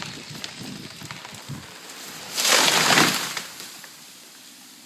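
Large tree falling: a run of sharp cracks and snaps, then a big smash about two and a half seconds in as the trunk and crown hit the ground, lasting under a second and dying away.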